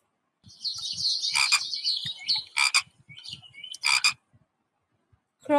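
A frog calling: high-pitched rattling trills, with three louder sharp calls about a second and a quarter apart, stopping about four and a half seconds in.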